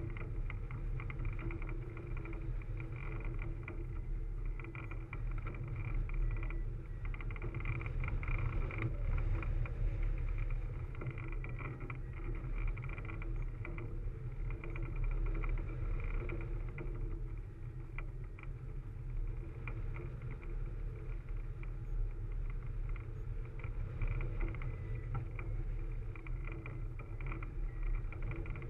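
Wind rushing over a camera mounted on a hang glider in flight: a steady low buffeting rumble, with faint steady whistling tones above it.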